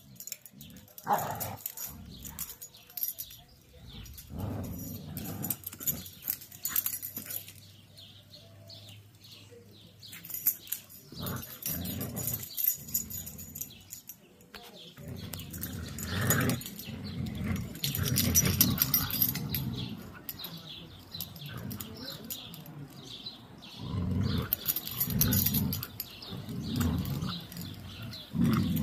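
Two huskies growling and grumbling in irregular bouts as they play tug-of-war over a plush toy: play growling, not a fight.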